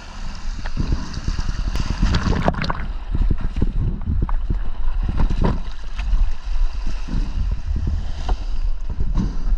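Sea water washing and splashing over a rocky ledge at the waterline, with water pouring back off the rock. Wind and water rumble unevenly on the microphone, with scattered short knocks.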